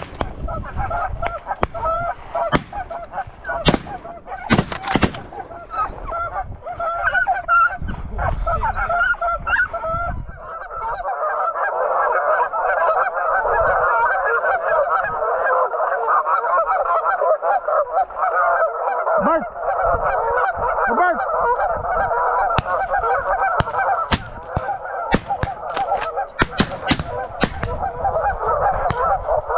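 A flock of Canada geese honking, many birds calling over one another, the chorus growing thicker and steadier about ten seconds in. Scattered sharp cracks cut through it, a few near the start and a cluster near the end.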